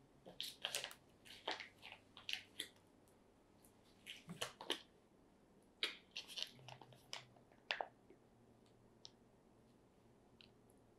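Crinkling plastic packaging being handled: a run of short, irregular crackles over the first eight seconds, then only a few faint ones.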